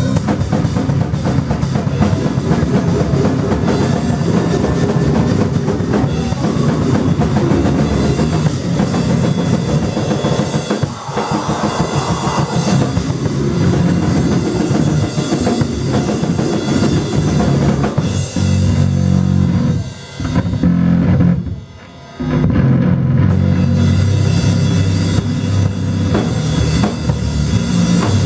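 Live rock band playing loud, with a drum kit's bass drum and snare driving the beat. The playing breaks off briefly twice, about two-thirds of the way in, then comes back in full.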